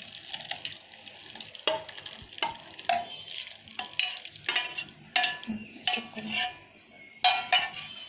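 Whey and curds pouring from a steel saucepan into a cloth-lined strainer, then a metal spoon scraping and knocking inside the pan to get the last curds out: a run of about ten sharp metallic clinks starting about a second and a half in.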